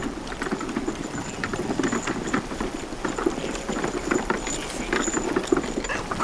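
Team of draft horses walking through wet snow, their hooves striking in an uneven run of steps several times a second.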